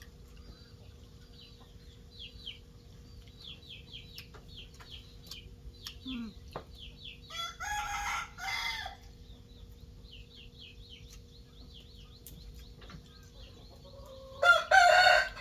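A rooster crowing twice, once about seven and a half seconds in and again, louder, near the end. Between and under the crows a small bird gives short, high, falling chirps, about three a second.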